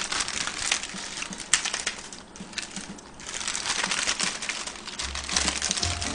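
Wrapped packets of seasoned laver (gim) crinkling and rustling as they are handled and shuffled in the hands, a dense run of irregular crackles.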